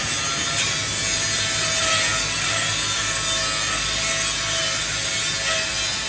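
Steady rasping noise of metal being worked on a shaft, with a faint wavering tone underneath.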